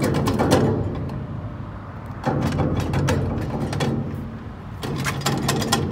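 Trailer wheel hub and brake drum rocked back and forth by hand, clunking and rattling loosely on the axle spindle in three bouts: the wheel bearing has failed.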